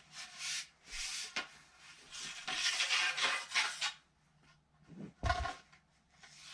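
Handling noise of Tubertini TLE 8001 pole sections being laid down and picked up: several bursts of rubbing and scraping, the longest from about two to four seconds in, then a dull knock about five seconds in.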